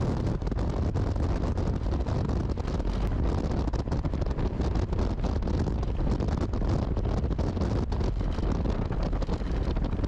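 Strong wind buffeting the microphone of a Moto Guzzi Griso 1200 V-twin motorcycle as it rides along a gravel road, a steady low rumble with the bike's running noise underneath.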